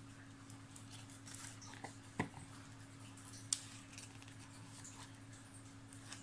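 Quiet room tone with a steady low hum and a few faint light clicks, the two sharpest about two and three and a half seconds in.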